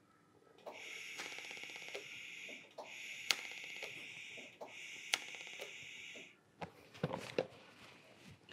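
TIG welding arc on 1.2 mm 304 stainless sheet, fusion-tacking a butt joint without filler wire: a steady hissing buzz in three bursts of about two seconds each. A few short knocks and clatter follow near the end.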